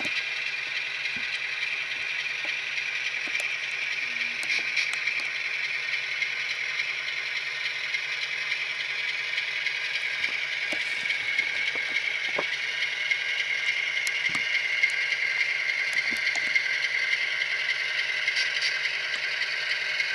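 Model GEVO diesel locomotive with a Tsunami sound decoder running along the track. Its small onboard speaker plays a steady diesel engine sound that drops slightly in pitch about halfway through, with scattered clicks from the wheels over the track.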